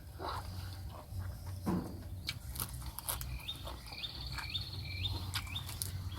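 Short rising chirps from a small animal, repeated about twice a second from about midway, with a thin high trill underneath. Scattered clicks of eating and utensils come before them, over a steady low hum.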